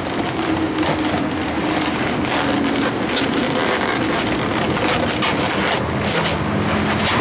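Inflated red latex 350 twisting balloons squeaking and crackling as hands twist them and wrap them round each other.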